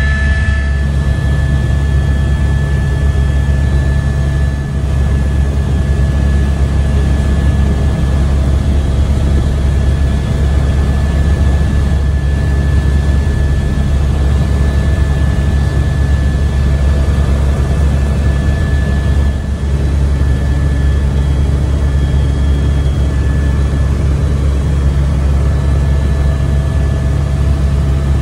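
Helicopter in flight heard from inside the cabin: the turbine engine and rotor make a loud, steady low drone with a thin steady whine above it.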